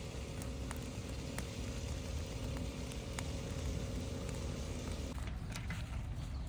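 Fire crackling, with scattered sharp pops over a steady low rumble; a faint steady hum runs until about five seconds in.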